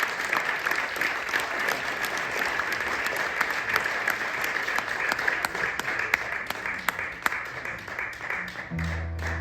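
Audience applauding and clapping at the end of a song. The applause thins out near the end, and a low steady note comes in.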